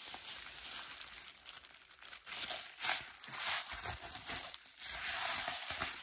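Plastic bubble-wrap mailer crinkling and rustling as a tissue-paper-wrapped box is slid out of it by hand, with louder bursts of crinkling about halfway through and again near the end.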